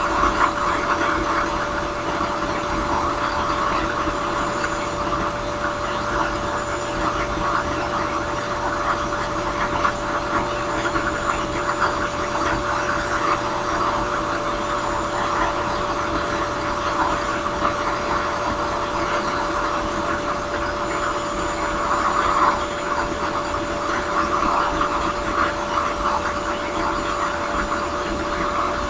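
Drill press spinning a small sanding drum against a briar pipe bowl: a steady motor hum with one held tone, under a scratchy sanding noise that swells and eases as the pipe is pressed in and turned.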